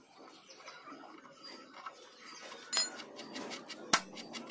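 Metal clinks and knocks of parts and tools while a motorcycle wheel is taken off: a sharp ringing clink nearly three seconds in and another short knock about a second later.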